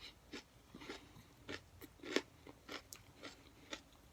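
A person chewing a hot pepper with the mouth close to the microphone: short crisp crunches, about two to three a second.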